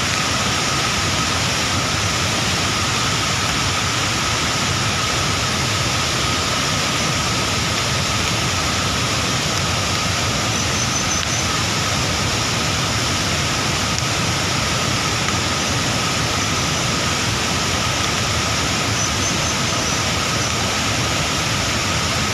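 Floodwater surging through a swollen river over rocks, a loud, steady rush of water without let-up.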